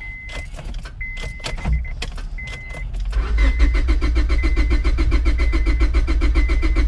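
A few clicks and short high beeps, then about three seconds in the starter of a 2003 Honda Civic's 1.7-litre four-cylinder engine begins cranking in rapid even pulses without the engine catching. It won't start because the fuel pump fuse has been pulled, and the cranking draws the remaining fuel out of the line before the pump is replaced.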